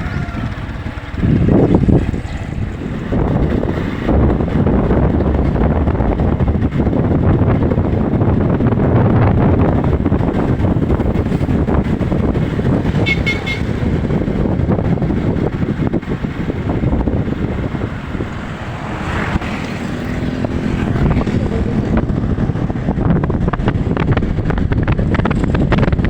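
Strong sea wind buffeting the microphone: a heavy, low rumble that swells and eases with the gusts.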